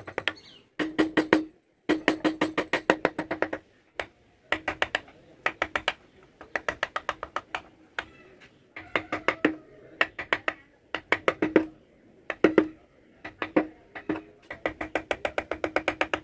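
Wooden mallet tapping a carving chisel into wood in quick runs of light strikes, about five or six a second, with short pauses between the runs. Each strike gives a short, ringing wooden knock.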